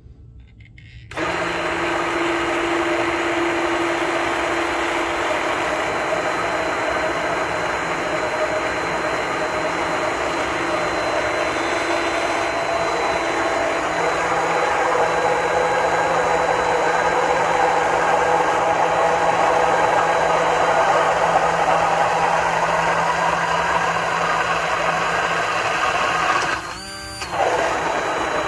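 Immersion blender switched on about a second in and running steadily in a glass mason jar, emulsifying eggs, oil, mustard and vinegar into thick mayonnaise. It drops off briefly near the end and comes back up.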